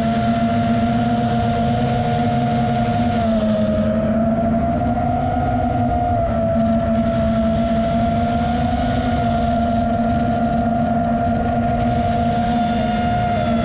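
FPV quadcopter's brushless motors whining at a fairly steady pitch while it cruises, with a slight dip in pitch about three to four seconds in, over a low rush of wind noise.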